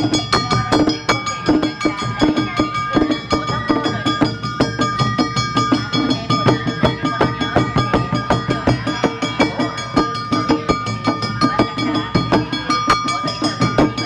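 Awa Odori festival band playing: large taiko drums, wrapped in plastic sheeting against the rain, and metal percussion beaten in a fast, steady, driving rhythm, with high ringing tones over the strikes.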